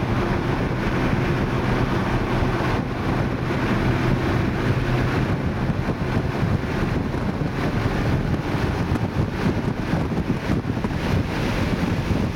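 Inside the cabin of a 2012 Mini Cooper S at track speed: the 1.6-litre turbocharged four-cylinder engine runs under load beneath a steady rush of wind and road noise.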